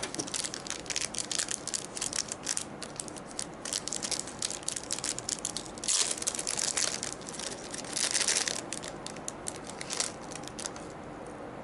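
Small plastic packaging crinkling and rustling in the hands as a fishing lure is handled and taken out, in many short crackles, with two louder stretches of crinkling about six and eight seconds in.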